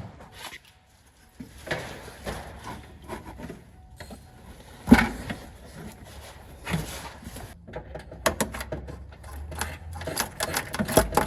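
Scattered knocks and clicks of hand work on a truck's cooling system as the lower radiator hose is refitted, with one loud knock about halfway through and a quick run of clicks near the end.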